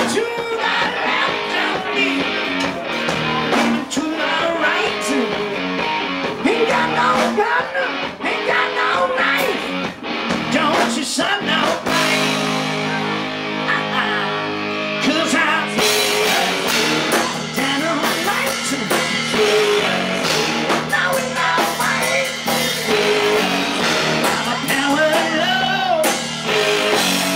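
Live hard rock band playing loud: electric guitars, a drum kit and a male lead singer, heard from the stage through the guitar amps and monitors rather than the mixed PA. From about twelve seconds in, the cymbals drop out for a few seconds under held chords, then the full band crashes back in.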